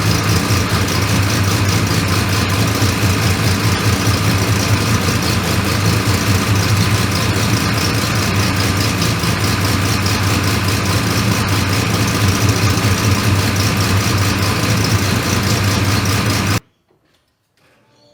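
Turbocharged L67 Ecotec 3.8 V6 of a Holden Commodore running at a steady idle, freshly back together after a turbo rebuild. It cuts off abruptly near the end.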